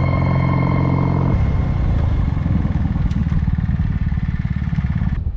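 Background music for about the first second and a half, then the Kawasaki W800's air-cooled parallel-twin engine running with an even, rapid pulse, cutting off suddenly near the end.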